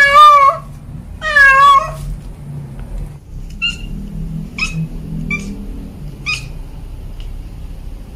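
Cat meowing loudly twice, each call under a second long, then four short, faint high-pitched chirps a few seconds in.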